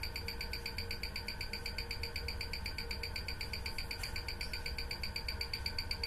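Ticking of a Bvlgari automatic watch movement picked up by a timegrapher's microphone and played through its speaker: an even, fairly quiet beat of about eight ticks a second, the movement's 28,800 beats per hour. It is still running about 38 seconds a day slow, with regulation not yet finished.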